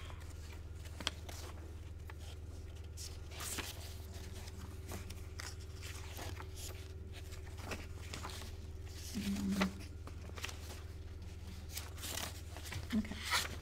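Quiet room tone with a steady low hum, broken by small scattered rustles and clicks. A short low sound rises above it about nine seconds in.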